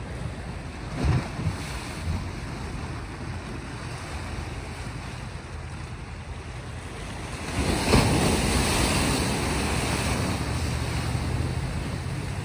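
Sea waves washing against a rocky shore, with one bigger wave breaking about three-quarters of the way through and its wash slowly fading; wind rumbles on the microphone.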